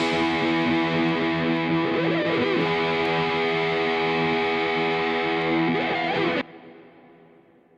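Background music: held, ringing chords that stop abruptly about six and a half seconds in and then die away.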